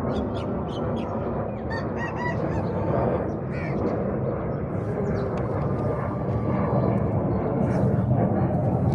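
Aseel chickens calling, a few short calls about two and three and a half seconds in, over a steady low rumble of background noise.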